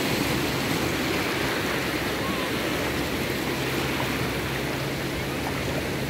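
Sea surf: small waves breaking and washing up over sand and around rocks at the water's edge, a steady rush of foaming water.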